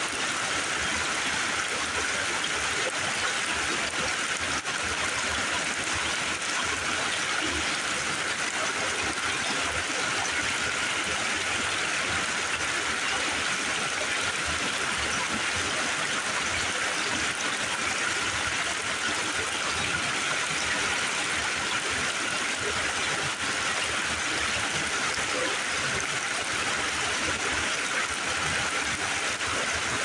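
Small mountain creek running over rocks and low cascades: a steady, even rush of water.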